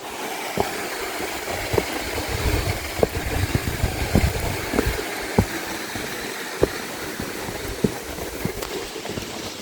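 Footsteps on a rough path, about one step every 0.6 s, over the steady rush of a stream. There is a low rumble for a few seconds near the middle.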